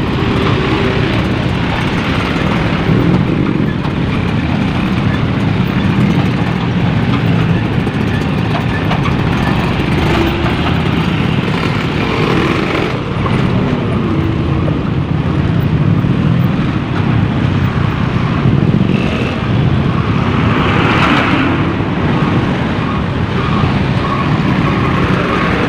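Steady, loud engine and road noise of slow, heavy traffic heard from a motorcycle riding close beside large trucks: a continuous low rumble of idling and crawling engines.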